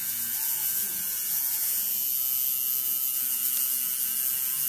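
Electric tattoo machine buzzing steadily while tattooing skin.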